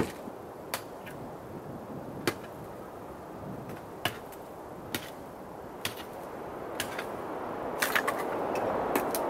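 Hatchet splitting firewood into kindling on a wooden block: sharp wooden knocks about once a second, the loudest right at the start.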